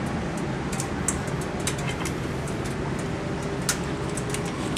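Steady background hum with a few light, sharp metallic clicks and taps from handling the motorcycle's air cleaner cover and its hardware.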